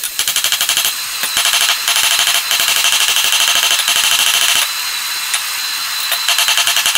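Hand hammer striking red-hot coil-spring steel on an anvil in a rapid run of sharp, ringing blows as the blade is forged.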